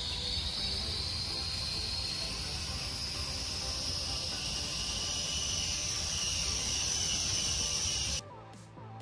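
Small toy camera quadcopter's motors and propellers whining as it lifts off, the pitch slowly rising, with wind rumbling on the microphone. The whine cuts off near the end.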